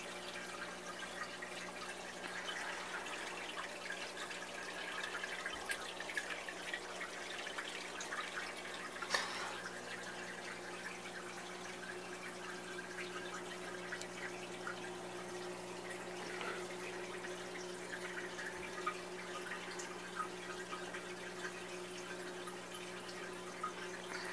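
Aquarium water trickling and dripping steadily over a steady low hum of the tank equipment, with one light click about nine seconds in.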